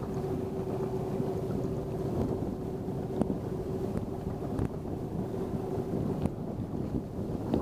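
Lake water rushing and slapping along the side of a wooden boat's hull, with a steady hum underneath and a few light ticks.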